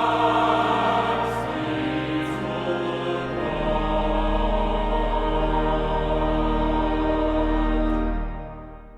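Choir singing with accompaniment in sustained chords, a low bass note joining partway through; the final chord is held and fades out near the end.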